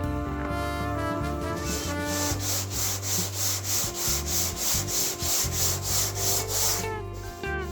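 Hand sanding a primed car body panel with a sanding block: rasping back-and-forth strokes about twice a second that begin a couple of seconds in and stop near the end, with music underneath.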